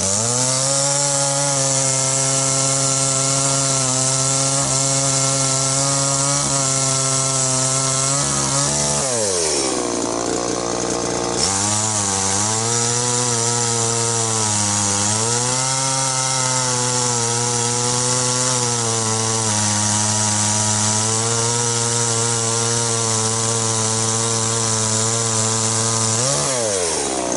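Tanaka 32cc two-stroke chainsaw running at high revs while cutting through a log. Its engine note falls off about nine seconds in and picks up again about two seconds later. It dips briefly midway and falls away near the end as the cut finishes.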